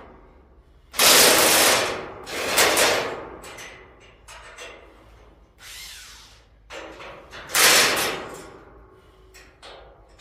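Hand ratchet being worked to raise a steel pallet-rack upright: three loud bursts of ratcheting, about a second each, with fainter strokes between.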